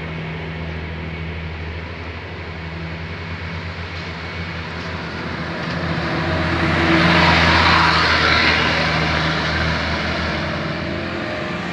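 A bus's diesel engine runs steadily with a low hum. From about six seconds in, a rush of passing-vehicle noise swells, is loudest around seven to eight seconds, then fades.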